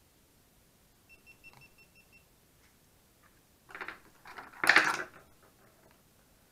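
A GoPro HERO2 action camera beeping a quick run of about eight short high beeps as it is switched off. A few seconds later comes a louder rustle and clatter of a cable and battery pack being handled, the loudest sound.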